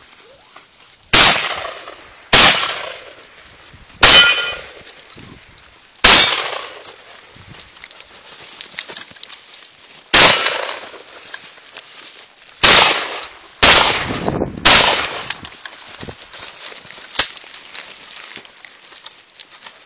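Eight pump-action shotgun shots at uneven gaps of one to four seconds, several followed by a brief metallic ring from struck steel targets. A single sharper, shorter clank comes near the end.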